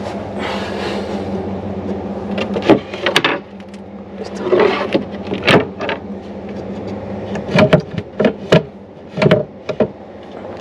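Furniture and boxes being handled: a series of sharp wooden knocks and clunks, several of them close together in the second half, over a steady low hum.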